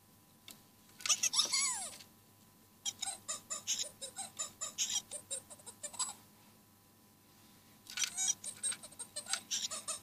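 Blue Fingerlings baby monkey toy making its electronic squeaky chirps and giggly babble: a short sliding squeal about a second in, then strings of quick chirps, several a second, in the middle and again near the end.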